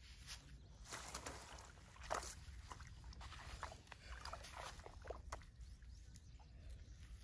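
Faint, irregular splashes and rustles: a caught fish flapping in a mesh bag at the water's edge, with the sharpest splash about two seconds in.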